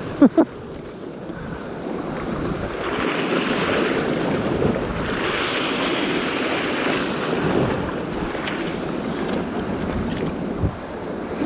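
Sea waves surging and washing against rocky shore, with wind buffeting the microphone; the wash swells twice, about three and about five seconds in. Two brief sharp pitched sounds come right at the start.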